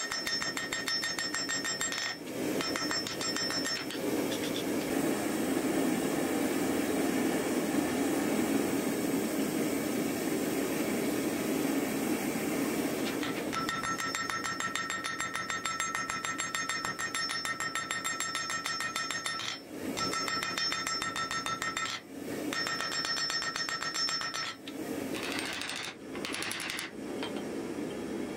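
Rapid, evenly repeated hammer blows on hot steel at an anvil, the metal ringing with each strike, as an axe head is forged. The hammering pauses briefly a few times near the end.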